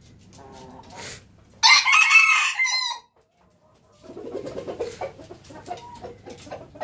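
A jungle fowl rooster crows once, a short, loud crow starting about a second and a half in and lasting about a second and a half. Quieter, low, rapid calls from fowl come before it and resume about four seconds in, after a brief silence.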